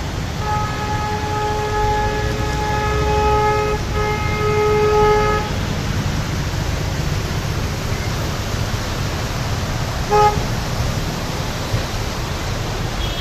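A vehicle horn honks in several long blasts with short breaks, then gives one short beep later, over a steady low traffic rumble.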